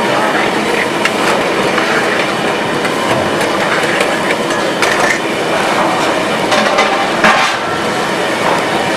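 Steel ladle and tongs clinking and scraping against a wide steel karahi as chicken tikka is stirred in its gravy, over a steady noise of the gas burner and the cooking gravy.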